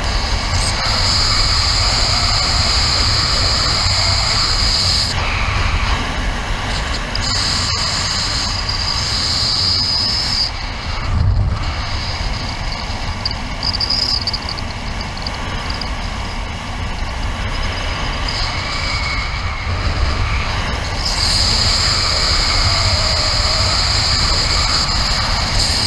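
Wind rushing over the camera microphone as a Nervures Rafale 13 speed wing flies at full speed with its trims fully released. A high, steady whistle cuts in and out for several seconds at a time above the wind.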